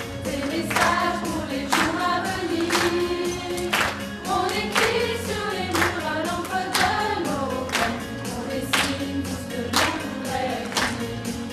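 A mixed choir of women and children singing a song together, over a sharp, steady beat that strikes about once a second.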